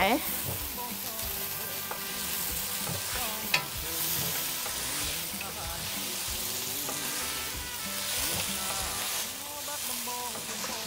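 Julienned ginger sizzling in hot oil in a wok, a steady frying hiss with the scrape and shuffle of a wooden spatula stirring it, and one sharper tap about three and a half seconds in.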